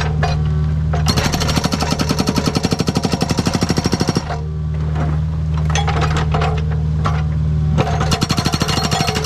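Agrotk 680 hydraulic breaker hammer on a Kubota U55 mini excavator pounding rock in rapid, evenly spaced blows. It runs in two bursts, from about a second in to about four seconds and again from near the end, over the excavator's steady diesel engine hum, which carries on alone between the bursts.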